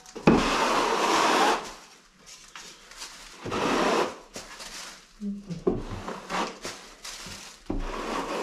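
A 1200 mm speed skim blade drawn across a freshly plastered wall: four scraping strokes, the first the longest and loudest at about a second and a half, the others shorter.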